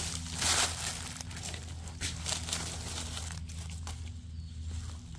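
Dry leaf litter rustling and crackling in short irregular bursts as someone moves through it and handles it, over a steady low hum.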